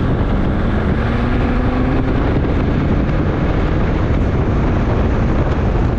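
Jeep Grand Cherokee 2.7 CRD five-cylinder turbodiesel driving at low speed, heard from outside the driver's window: a steady rush of wind and road noise on the microphone, with a tone that rises in pitch between about one and two and a half seconds in.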